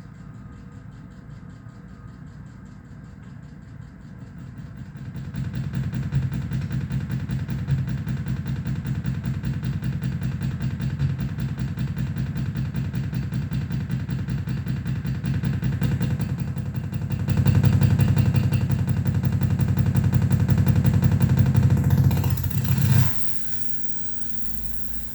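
Electronic noise from a mixer-feedback noise rig: a low, rapidly pulsing buzz that gets louder about five seconds in, louder again past the middle, and cuts off abruptly near the end.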